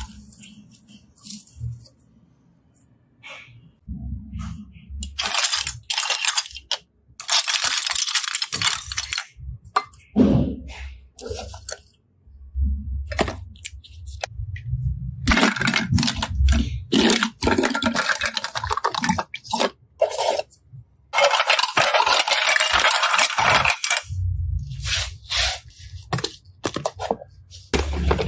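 Clear plastic toy cases clattering and scraping against each other as a hand stirs through a pile of them, in several long stretches of dense rattling with short pauses and a few dull thumps.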